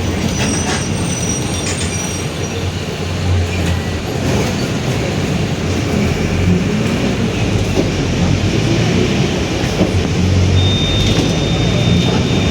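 Mercedes-Benz OF-1721 city bus under way, its four-cylinder diesel running under a steady low drivetrain rumble that swells and eases, with the differential growling. A thin high whine comes in briefly near the end.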